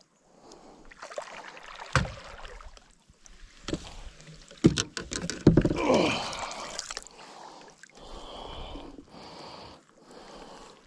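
A hooked largemouth bass thrashing and splashing at the surface beside the boat as it is scooped up in a landing net and lifted aboard, with sharp knocks of the net and its handle against the boat about two seconds in and again near five seconds.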